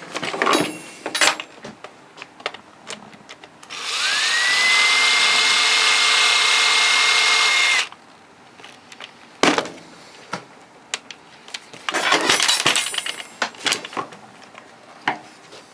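Power drill spinning up and running steadily for about four seconds before stopping abruptly, driving a screw on the saw's housing. Light clicks and knocks of parts being handled come before and after.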